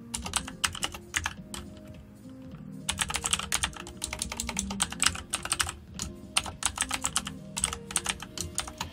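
Computer keyboard typing in quick runs of keystrokes, with a pause of about a second near the start, over faint background music.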